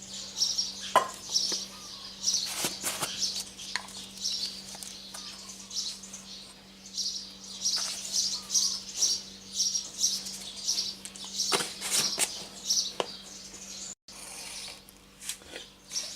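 Small birds chirping repeatedly in short high bursts, with scattered light clicks and knocks and a faint steady low hum underneath.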